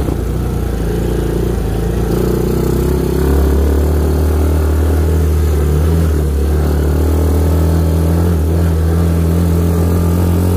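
ATV engine running steadily under load as the quad is ridden off-road and pushed hard, pulling a little harder and louder about three seconds in.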